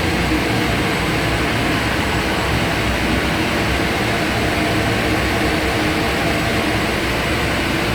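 Steady drone of boiler-room machinery, with large 500-horsepower boilers running: a constant low hum and a few steady tones over an even rushing noise.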